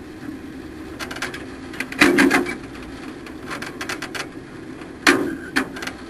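A race truck's engine running low and steady, broken by a series of sharp clunks and rattles. The loudest clunk comes about two seconds in, with two more strong ones about five seconds in.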